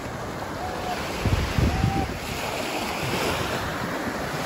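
Wind rushing and buffeting the microphone in gusts, with a stronger low rumble about a second and a half in.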